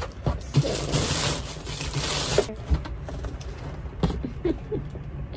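Packaging rustling and light knocks as boxed plastic parts are handled, with a run of rustling for about two seconds near the start and a few sharp taps after it.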